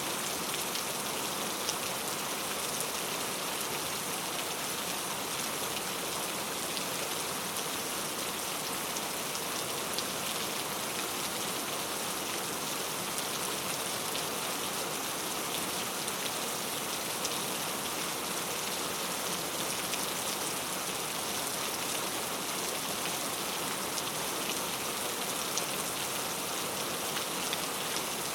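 Steady rain falling on a surface: an even hiss flecked with the ticks of single drops.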